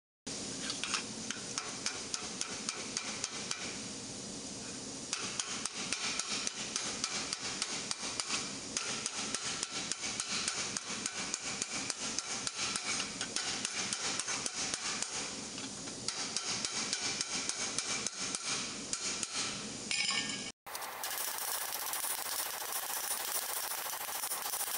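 Hammer striking a red-hot steel gauntlet plate over a stake in quick, steady blows, raising the sheet from the hand toward the wrist. About twenty seconds in the hammering cuts off abruptly and gives way to a steady hiss.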